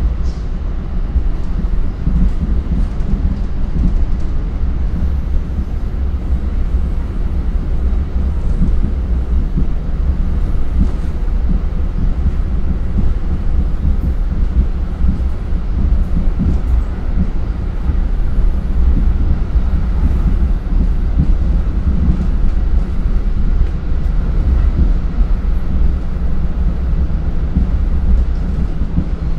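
Commuter train running at speed, heard from inside the passenger car: a steady, loud, low rumble of wheels on rail.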